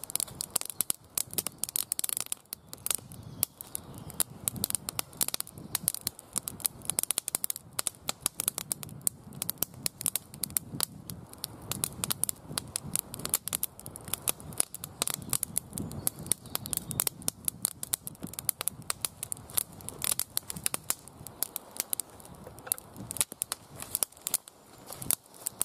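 Small campfire of split kindling sticks and dry grass crackling, with a dense run of quick sharp snaps and pops.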